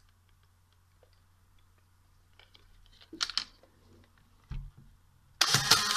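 Small handling clicks on a Polaroid Supercolor 1000 instant camera and a thump about four and a half seconds in. Near the end comes about a second of loud, even whirring from the camera's ejection motor as it drives the dark slide out of a freshly loaded SX-70 film pack; the slide gets stuck partway.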